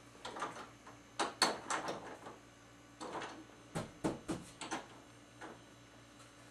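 A string of irregular knocks, clicks and scuffs, bunched in two clusters, over a faint steady hum.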